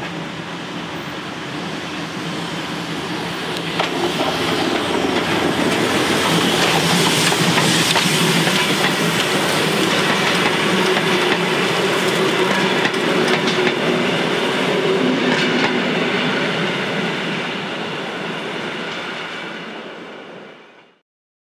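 Train hauled by steam locomotive 64 518 running past, growing louder about four seconds in, then fading and cutting off abruptly near the end.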